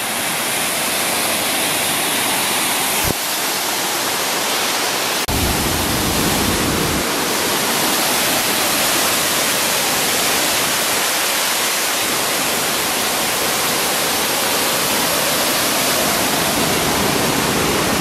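Aubrey Falls on the Mississagi River: a large waterfall's steady rush of falling, churning water. About five seconds in the sound shifts abruptly and takes on more low rumble.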